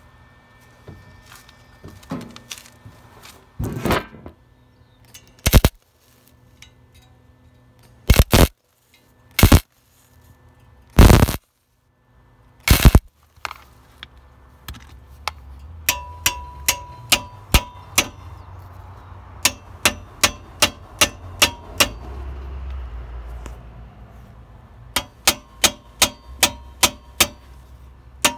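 Flux-core wire-feed welder (Lincoln Pro MIG 140) laying short tack welds on a thin dirt-bike muffler, its heat set near the lowest setting: brief crackling bursts of arc a second or two apart in the first half. In the second half, a quicker run of short sharp zaps, about two a second, pausing briefly near the middle, as the bead is put down in small increments over the tacks.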